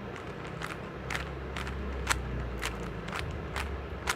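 A plastic one-layer Rubik's cube being twisted by hand, its layers clicking irregularly about twice a second.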